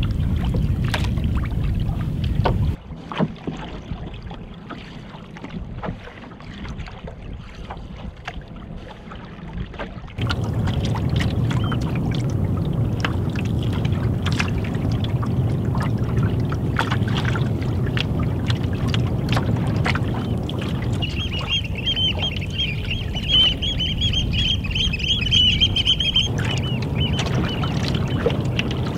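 Canoe paddling on choppy open water: paddle strokes and water slapping against the hull, with wind rumbling on the microphone. The rumble drops away about three seconds in and returns about ten seconds in. Between about 21 and 26 seconds in, birds call high and fast over it.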